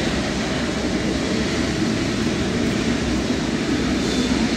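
Jet airliner engines running, a steady rumble that grows a little louder near the end.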